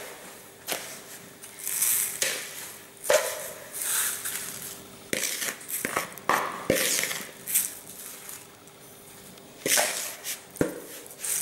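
A granular salt-and-sugar curing mix is pushed out of a bowl with a metal spoon and poured over pork loins in a plastic tray. It falls in several short rushes of gritty hiss, with a few clicks and scrapes of the spoon against the bowl and tray.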